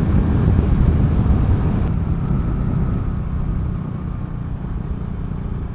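Honda Grom's 125cc single-cylinder engine running at road speed, mixed with wind rushing over the microphone, growing quieter about halfway through.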